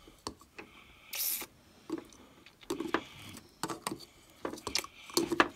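Small plastic toy cups handled against dolls, giving light clicks, taps and rubbing. A short hiss comes about a second in.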